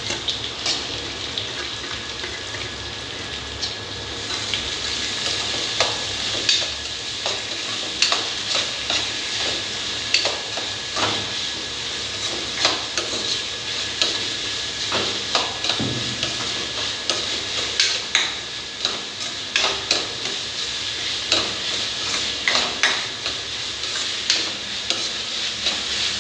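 Chopped onions sizzling steadily in hot oil in a kadhai, frying toward a pinkish colour. From about four seconds in, a steel spoon scrapes and knocks against the pan in irregular clicks as the onions are stirred.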